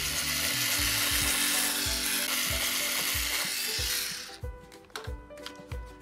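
Small handheld electric drill running with a steady hissing whir on a toy truck's wheel, cutting off about four seconds in. Background music with a steady beat plays underneath.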